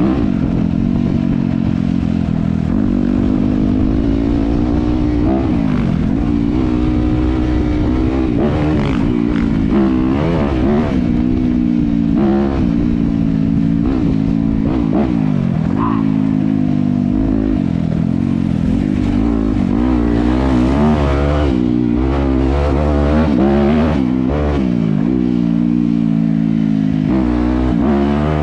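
Dirt bike engine running while being ridden, its pitch rising and falling again and again as the throttle is opened and closed, with a run of quick revs from about eight seconds in until near the end.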